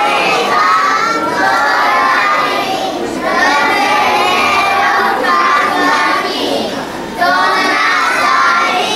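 A group of young children singing together on stage through microphones, in phrases with short breaks about three and seven seconds in.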